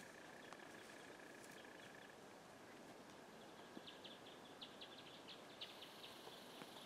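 Near silence: faint forest quiet, with a run of faint, short high chirps, several a second, in the second half.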